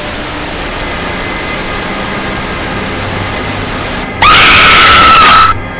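A steady hiss of static-like noise, then about four seconds in a sudden, very loud, shrill scream that holds one pitch for about a second and cuts off abruptly, as a horror jump-scare.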